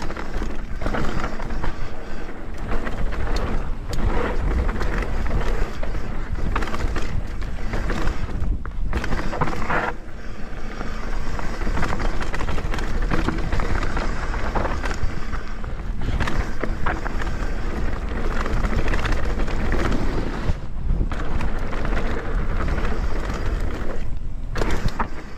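Mountain bike riding down a dirt trail: steady rolling and rushing noise with a constant clatter of knocks and rattles as the bike goes over bumps, easing briefly a few times.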